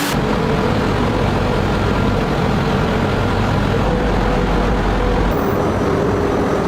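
Steady mechanical rumble of running machinery with a faint hum, its low end shifting about five seconds in.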